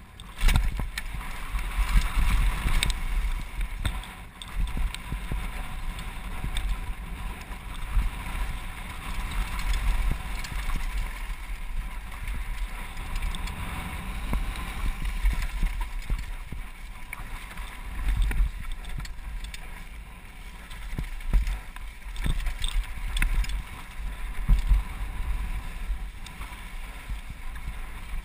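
Downhill mountain bike descending a rocky dirt trail, heard through a helmet-mounted action camera: wind buffets the microphone with a low rumble while tyres crunch over gravel and the bike rattles, with frequent sharp knocks over bumps.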